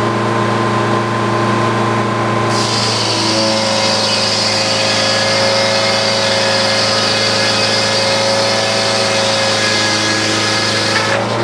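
Frick sawmill's circular saw running steady, then from about two and a half seconds in cutting through a big oak log: a high, steady sawing noise over the drive engine, whose pitch drops slightly under the load. The cutting noise stops just before the end as the blade leaves the cut.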